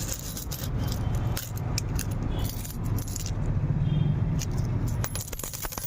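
Metal coins clinking and jingling together in a series of sharp clicks, thicker near the end, over a steady low hum.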